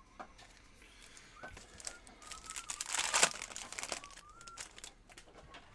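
Foil wrapper of a Donruss Optic trading-card pack crinkling as it is opened and the cards are pulled out. It is loudest about three seconds in.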